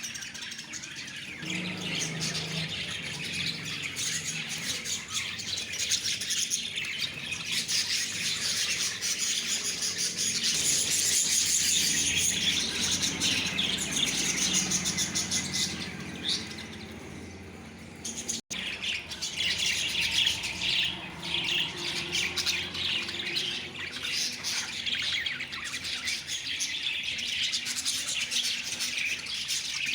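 Lovebirds chattering continuously, a dense stream of quick, high chirps and squawks. It breaks off for an instant a little past halfway, then carries on.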